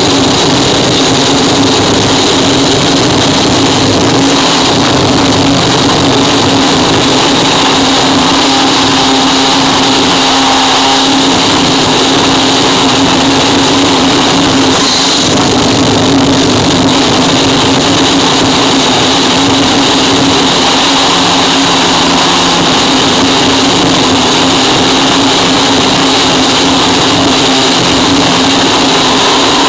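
Harsh noise wall: a loud, dense mass of distorted static that holds steady without pauses, changes or rhythm.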